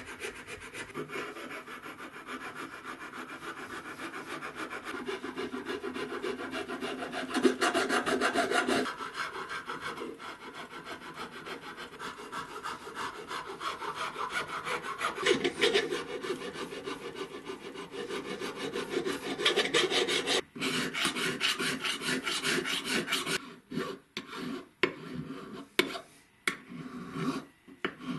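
Flat metal file rasping across a flintlock pistol's wooden stock in quick, continuous back-and-forth strokes, shaping the wood. In the last few seconds the strokes come shorter and separated by brief pauses.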